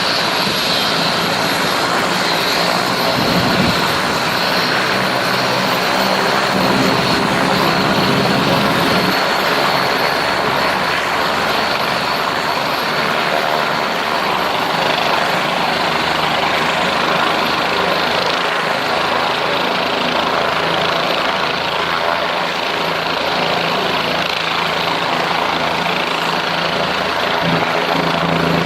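Medical helicopter's turbine engine and rotor running loud and steady at close range, with a thin high whine over a low pulsing rotor beat.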